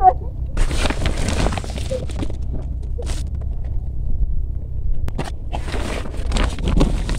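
Rustling and crinkling of a woven plastic sack and fresh chilies being handled, in a few short bursts (about a second in, around three seconds in, and again for a second or so near the end), over a low steady rumble.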